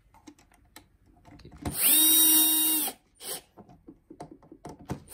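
Bosch Professional cordless drill/driver driving a screw to fix a hook bracket: the motor runs at a steady pitch for about a second, gives a brief blip shortly after, and starts again at the very end. Small clicks of the screw and bracket being handled come between the runs.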